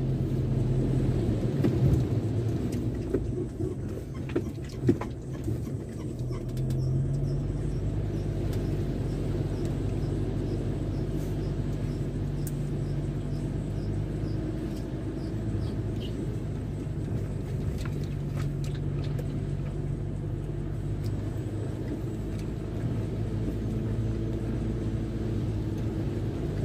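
Car engine and tyres on a wet road heard from inside the cabin while driving slowly, a steady low hum whose pitch shifts a few times. A few knocks sound between about two and five seconds in.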